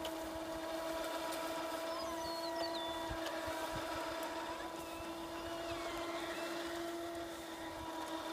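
Steady hum of the goat pen's automatic winch mechanism running, reeling in the steel cable that drags the pen slowly forward.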